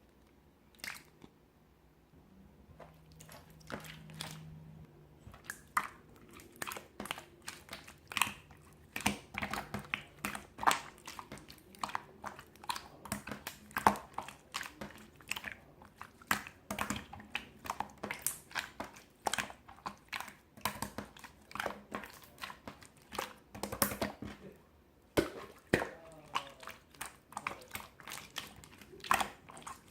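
Slime being squished and pressed by hand, giving irregular sticky pops and clicks several times a second, starting a couple of seconds in.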